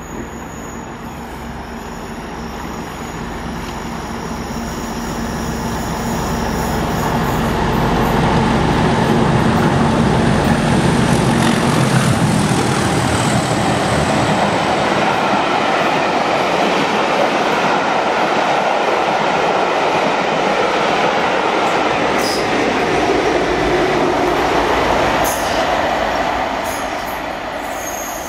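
Two Class 37 diesel-electric locomotives with English Electric twelve-cylinder engines, running as they approach and pass, growing louder over the first several seconds. Then the steady rolling and wheel noise of the coaching stock going by, with a few sharp clicks near the end.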